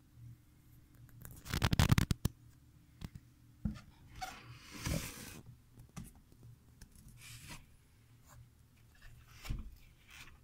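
Handling noises of a hand on a wooden hanging plaque and its twine hanger: a burst of rapid scratchy clicks about a second and a half in, then scattered taps and a brushing rustle, with another knock near the end.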